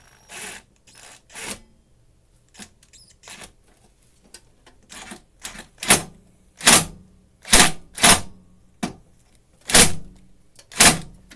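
Impact driver run in short trigger bursts, driving a screw into an air conditioner's switch unit. A few light bursts come first, then about six loud ones roughly a second apart as the screw is driven home tight.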